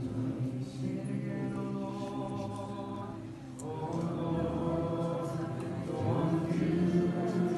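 Group of voices singing a slow worship song in long held notes, growing louder in the second half.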